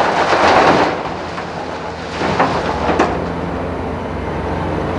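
Rock pouring from a Hitachi 350 excavator's bucket into a steel tipper body, a loud rushing rumble that ends about a second in. After it come a couple of sharp clanks around two and three seconds in, over the steady drone of the diesel engines.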